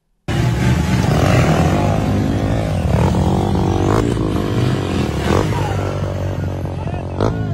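Off-road buggy's engine revving up and down under load as it climbs a steep muddy bank with its front rearing up, with a few sharp knocks from the chassis and tyres on the dirt.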